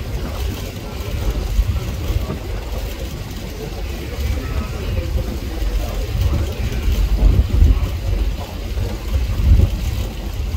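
Staten Island Ferry under way: a steady, uneven low rumble of engine and wind noise from the moving boat.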